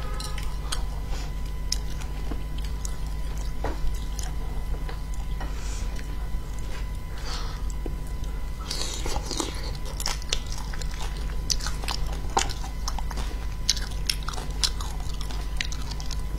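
Close-up chewing and biting of spicy braised fish, with frequent short wet smacks and clicks from the mouth. A steady low hum runs underneath.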